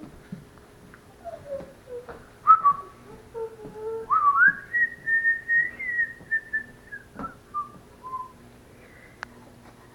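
Pet parrot whistling: a few short falling notes, then a rising glide to a high note held for about three seconds, ending with a couple of shorter falling notes. A sharp click near the end.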